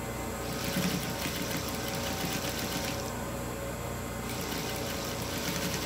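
Industrial sewing machine stitching slowly through layered fabric: fast, even needle ticking over the motor's steady hum, pausing briefly about three seconds in and then starting again.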